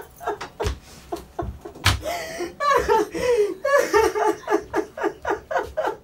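A woman sobbing hard in quick, heaving pulses of breath and voice, with a longer wavering cry in the middle.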